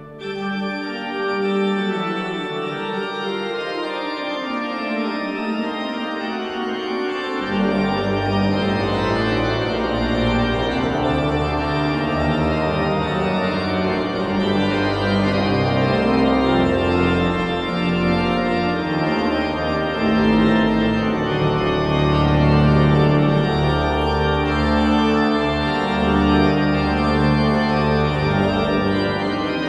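Pipe organ playing a brisk passage on the manuals. Pedal bass notes come in about seven seconds in and continue underneath.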